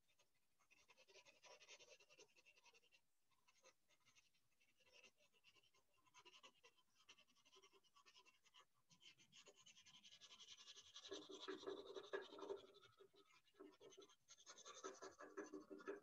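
Faint scratching of a pencil drawing and shading on sketchpad paper, in quick strokes that grow louder in two stretches in the second half.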